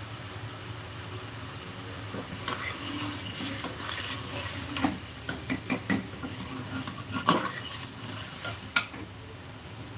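Metal ladle stirring masala frying in a metal pressure cooker: the food sizzles, and the ladle scrapes and clinks against the pot's sides in a quick run of knocks from about halfway through, the loudest clink near the end.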